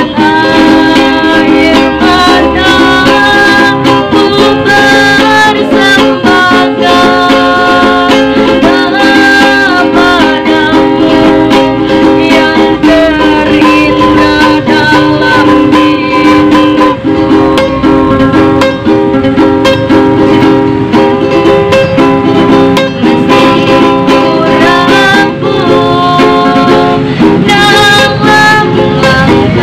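A young girl singing a song to her own ukulele accompaniment, the ukulele strummed steadily under her melody.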